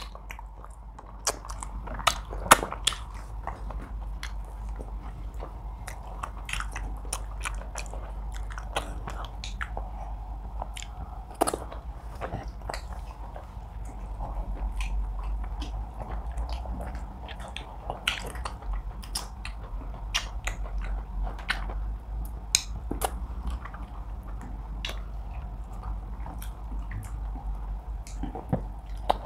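Close-up eating sounds of people eating pounded yam and okra soup with their hands: chewing and biting, with many scattered short wet clicks and smacks. A steady low hum runs underneath.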